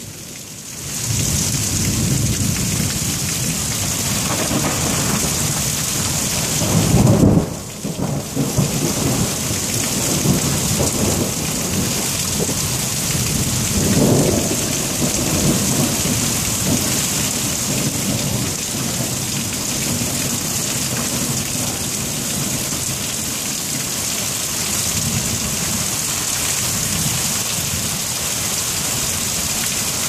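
Heavy rain falling steadily, with rolling thunder rumbling through it. The loudest peal comes about seven seconds in and another rumble about fourteen seconds in.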